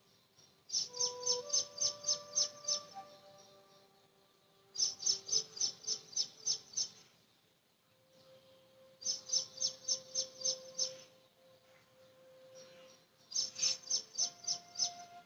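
A bird calling in four runs of about two seconds each: sharp, high notes repeated about four or five times a second, with a pause of a couple of seconds between runs. Faint held tones sound softly underneath.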